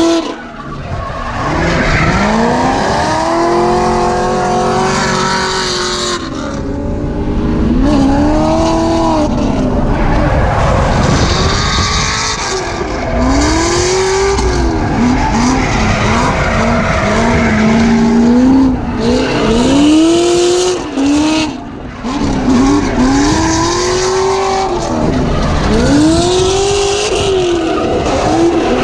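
A drift car's engine heard from inside the cabin, revving up and dropping back again and again as it slides, with tyres squealing and skidding.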